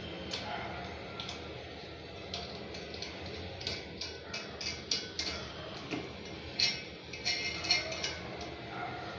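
Irregular light clicks and taps, bunched in quick runs in the middle and near the end, from small metal hardware being fitted by hand onto the mounting bolts under a wall-hung ceramic sink.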